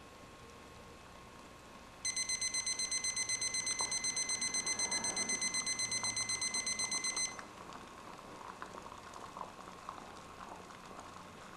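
Digital probe thermometer's alarm beeping rapidly and high-pitched, about five beeps a second for about five seconds, going off as the water reaches its 212°F boiling set point. After the beeping stops, the water in the pot is heard bubbling with light crackle.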